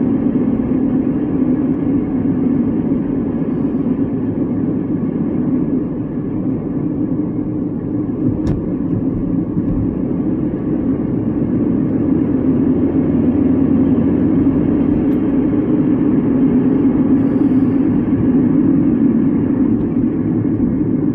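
Steady road and engine noise inside a moving car's cabin, a low, even drone. There is a single faint click about eight seconds in.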